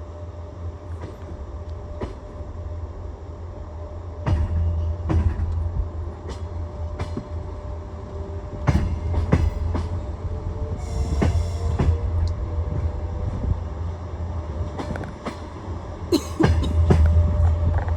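Moving passenger train's wheels clacking over rail joints, heard from inside a sleeper compartment, with sharp knocks coming every half second to a second over a steady low rumble and a faint steady hum. The clatter grows louder for stretches, briefly about a quarter of the way in and again near the end.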